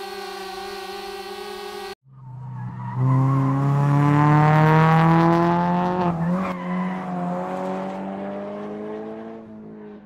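A steady held tone cuts off abruptly about two seconds in. A motor vehicle's engine then builds up and accelerates, its pitch rising steadily for a few seconds before levelling off and fading near the end.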